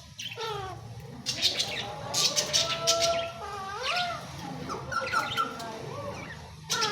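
Pet parrot vocalizing: a run of gliding whistles broken by harsh squawks.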